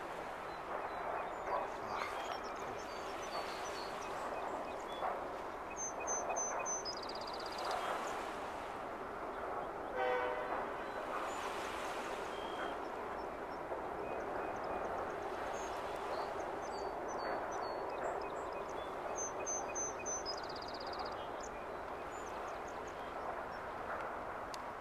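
Steady drone of a large car ferry's engines across open water, with one held tone through it. A small songbird sings the same short song of high chirps ending in a trill twice, and a single short call sounds about ten seconds in.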